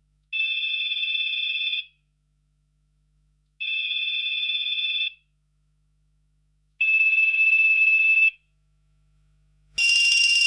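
Telephone ringing with an electronic ring: three steady rings of about a second and a half each, spaced about three seconds apart. Near the end a brighter, harsher ring starts and cuts off abruptly.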